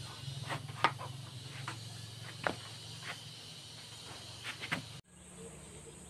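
Wooden boards being handled and fitted together by hand, with a few short knocks and clicks of wood on wood. Under them is a steady low hum and hiss.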